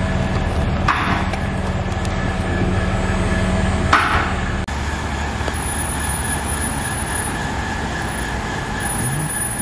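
2018 Mustang GT's 5.0 V8 idling steadily through a freshly fitted straight-pipe exhaust with an X-pipe and no mufflers. Two sharp knocks are heard about a second in and around four seconds in.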